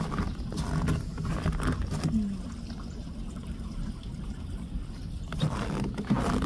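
A creek trickling under ice over a low rumble of wind on the microphone, with a person's low voice murmuring over the first two seconds. A few crunching steps in snow come near the end.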